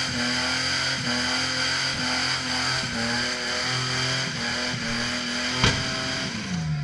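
Car engine held at high revs in a burnout, the note dipping and recovering every second or so, over the hiss and squeal of spinning tyres. A sharp crack about five and a half seconds in, then the revs fall away near the end.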